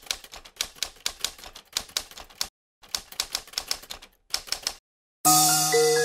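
Typewriter keystroke sound effect, a rapid run of key clicks with two brief pauses, stopping a little before five seconds in. Music with held notes starts just after.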